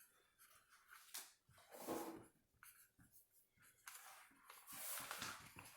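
Faint scratching of handwriting strokes, a few short strokes and then a longer one near the end.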